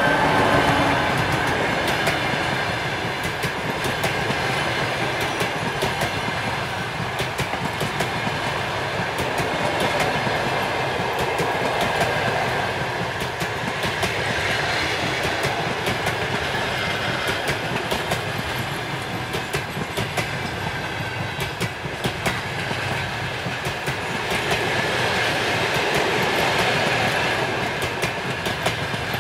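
Passenger train coaches rolling past at speed: a steady rumble of wheels on rail with continuous clickety-clack from the wheels crossing rail joints. At the very start, the falling tones of the diesel locomotive's horn fade out as it moves away.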